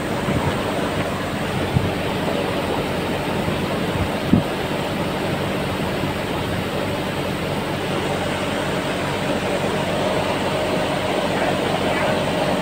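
Cooling tower running: a steady rush of falling water and fan air, with a faint steady hum underneath and a small knock about four seconds in.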